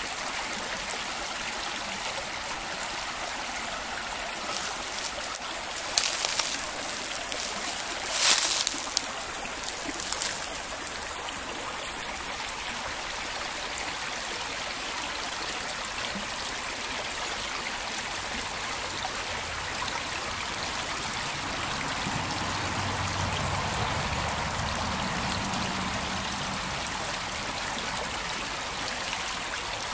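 Small mountain brook trickling over rocks as a steady rushing hiss, with a few brief louder bursts between about four and ten seconds in.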